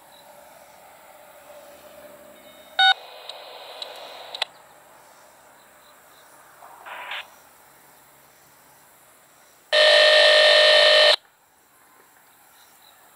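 Railroad radio scanner sounds. A sharp electronic beep about three seconds in is followed by a second and a half of static hiss. A brief burst comes near seven seconds, and about ten seconds in a loud buzzy electronic tone lasts about a second and a half.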